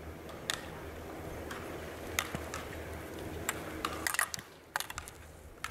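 Slalom skis scraping and carving through turns on packed snow, stopping about four seconds in. Several sharp clacks come through, as the racer knocks the hinged gate poles aside.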